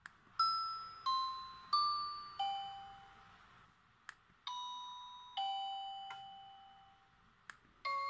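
LG U8330 flip phone previewing its message alert tones as the list is scrolled: a key click, then a four-note chime with each note dying away; another click about four seconds in, then a two-note falling ding-dong; a third click near the end as the next tone begins.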